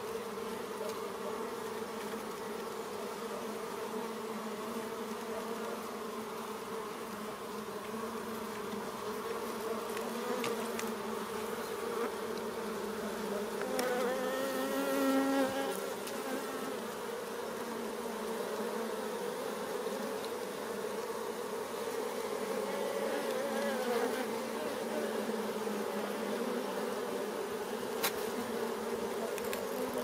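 A colony of honey bees humming steadily in an opened hive, with one louder buzz swelling close by about halfway through and a single sharp click near the end.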